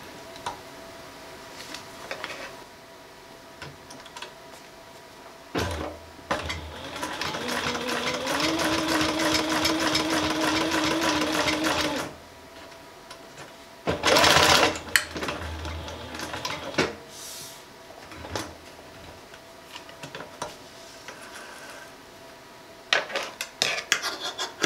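Tuff Sew walking foot industrial sewing machine, driven by a servo motor, stitching through marine vinyl with heavy V92 thread and a size 21 needle. It runs steadily for about six seconds and steps up in speed partway through, then stops. A short loud burst of noise follows, and near the end come a few clicks as scissors snip the vinyl.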